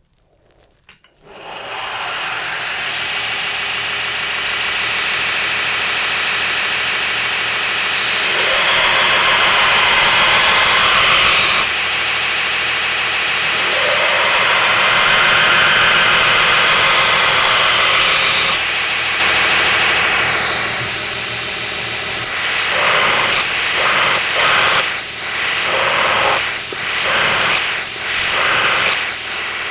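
Belt grinder starting up about a second in and running, with a steel knife blade pressed against the abrasive belt to grind its bevels. There are two long grinding passes, then many short, interrupted passes near the end.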